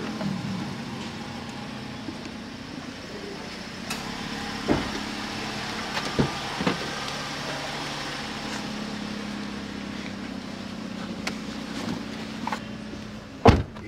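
Car engine idling steadily, with a few light knocks and a loud thump near the end.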